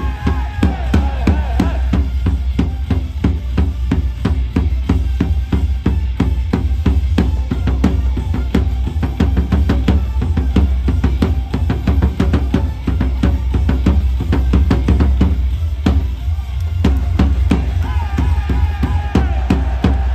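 Loud baseball cheer music driven by a fast, steady drumbeat over heavy bass. A melody rides over it for the first couple of seconds and comes back near the end.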